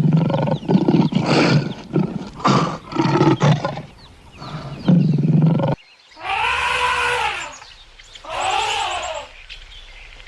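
Animal calls: first a string of rough, growling calls. After a cut, two long calls whose pitch rises and then falls.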